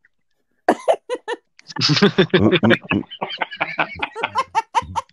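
Laughter over a video call: after a short pause, a voice breaks into a run of short, quick bursts of laughing, about four a second, mixed with some voiced sounds.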